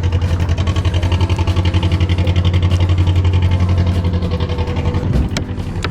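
An engine idling steadily with a low, even throb. It drops in level about five seconds in.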